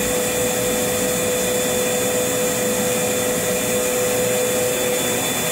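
Vacuum cleaner running steadily, an even rushing hiss with a constant whine through it.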